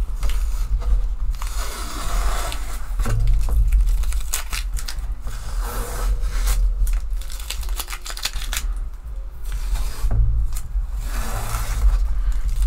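Masking tape being peeled off the edges of a watercolour painting on paper: several rasping, tearing strips one after another, with a few small clicks and knocks in between.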